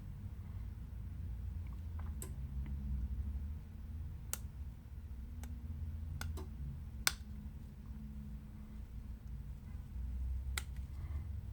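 Scattered sharp little clicks of small tools and parts against a smartphone during disassembly, about seven of them at irregular intervals with the sharpest about seven seconds in, over a steady low hum.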